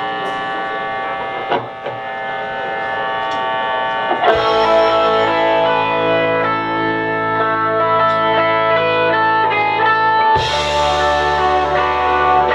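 Live rock band starting a song: electric guitar holds ringing chords, then bass and drums come in about four seconds in. The band gets fuller and louder again about ten seconds in.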